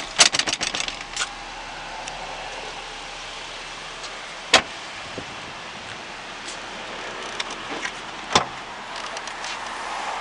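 Car body hardware being handled on a Mitsubishi Outlander: a quick run of clicks and rattles at the start, then a single sharp door slam about four and a half seconds in, and another sharp clunk a little after eight seconds as the tailgate is unlatched and lifted.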